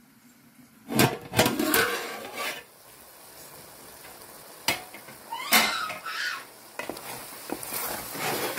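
Metal pot and utensils clanking and knocking in several clusters, then a wooden spatula scraping and stirring boiled vegetables and field beans in a metal pot.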